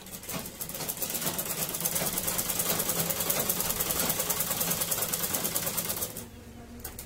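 Black straight-stitch sewing machine running fast and steady, stitching a waistband onto pleated petticoat fabric. It picks up speed over the first second and stops suddenly about six seconds in.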